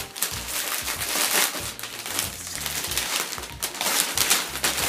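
Glossy wrapping crinkling and rustling in irregular bursts as a parcel is torn open and unwrapped by hand.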